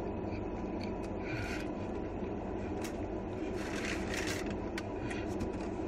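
Biting into and chewing a steak sandwich with lettuce: a few short, soft crunches of lettuce and bread, the longest about three and a half to four and a half seconds in. Under it runs a steady low hum inside the car's cabin.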